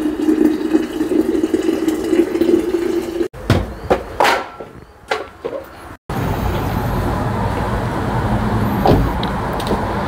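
Hot water poured from an electric kettle into a stainless-steel flask: a steady filling gush that cuts off suddenly after about three seconds. A few faint scattered sounds follow, then from about six seconds an even, steady street noise with traffic.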